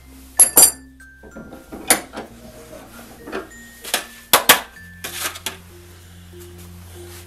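Metal tools and small brass pump parts clinking and knocking on a wooden workbench as an adjustable wrench is put down and the check valve is taken from the vise, with a short scrape about five seconds in. Soft background music with gentle mallet-like notes plays under it.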